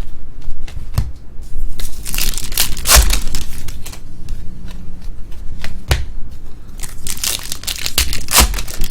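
Trading card pack wrappers being torn open and crinkled by hand, in two main bursts of ripping and rustling with a few sharp clicks between.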